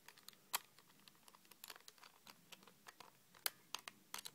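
Faint, irregular small clicks and taps of a screw being driven by hand into the plastic trigger-mechanism casing of an airsoft sniper rifle, with the sharpest clicks about half a second in and about three and a half seconds in.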